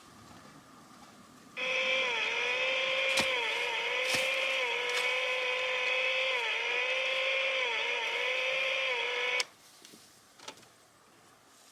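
A small motor runs steadily for about eight seconds, its pitch sagging briefly several times, then cuts off abruptly.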